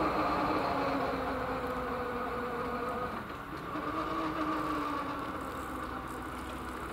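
Railway level crossing just after a train has passed, the half-barrier arms being raised by their drives: a steady mechanical hum with a few held tones that dip and climb slightly in pitch, slowly getting quieter.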